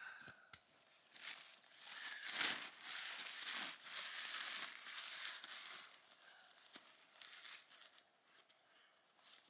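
Rustling and crinkling of tent nylon and a puffy jacket as a person crawls out of a small tent. It is busiest between about two and six seconds in, then thins to soft, scattered rustles.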